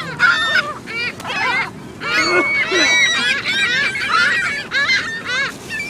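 A flock of waterfowl honking and calling over one another in many short, overlapping calls, crowding in to be fed bread.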